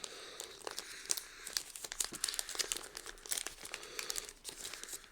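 Foil booster-pack wrappers crinkling as they are handled, a run of small crackles and rustles.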